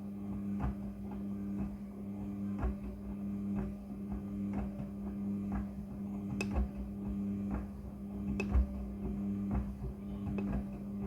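Front-loading washing machine running a wash cycle with stuffed toys in the drum: a steady motor hum with soft knocks about once a second as the load tumbles, a couple of them louder.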